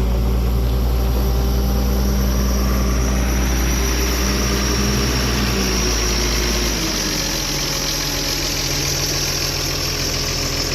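An engine idling steadily; its low note changes and drops slightly about seven seconds in.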